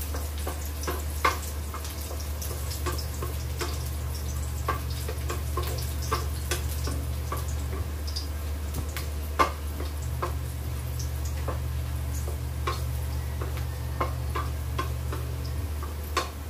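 Food sizzling in oil in a stainless steel wok as a wooden spatula stirs it, knocking and scraping against the pan every so often, over a steady low hum.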